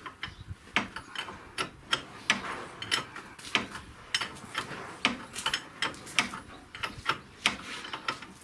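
Wrench clicking in uneven short strokes, roughly two to three a second, as it works a stiff self-locking nut onto the ball-joint stud of a front lower control arm.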